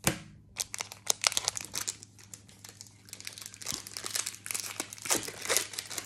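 Foil wrapper of a Pokémon TCG booster pack crinkling and tearing as it is handled and opened, with cards rustling: a busy run of sharp crackles and clicks, densest about a second in and again near the end.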